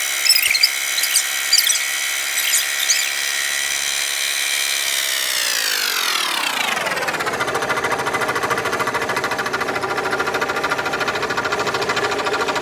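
Scroll saw running at speed, its motor pitch gliding steadily down about halfway through and settling into a slower, steady run with a regular pulsing beat from the reciprocating blade.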